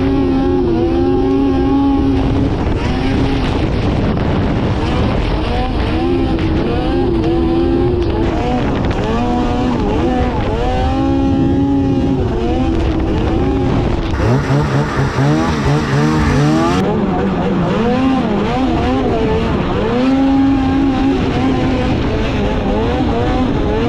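Two-stroke engine of an Arctic Cat Catalyst snowmobile under way, revving up and dropping back again and again as the throttle is worked. About two-thirds of the way through there is a brief rough, choppy patch.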